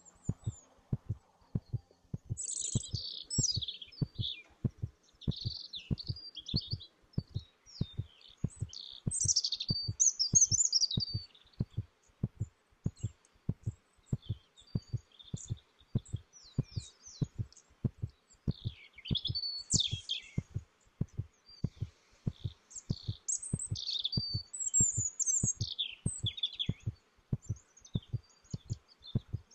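Added soundtrack: a steady, evenly spaced low pulse like a heartbeat, with bursts of high bird chirping and twittering that come and go over it.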